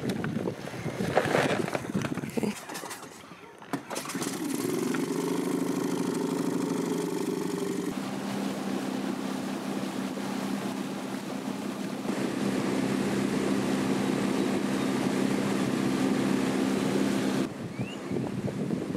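Outboard motor of a small open boat running steadily, its note settling about eight seconds in, after a few seconds of irregular knocks and clatter. Near the end it gives way to a rush of wind and water.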